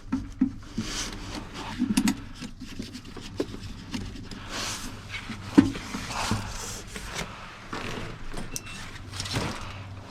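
Tools and gear being handled: scattered knocks, clicks and rustling over a steady low hum, with one sharper knock about halfway through.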